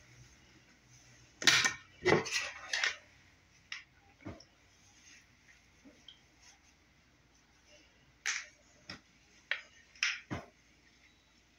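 Scattered sharp clicks and knocks from handling a comb and a Conair ceramic flat iron: a cluster about one to three seconds in and another around eight to ten seconds in.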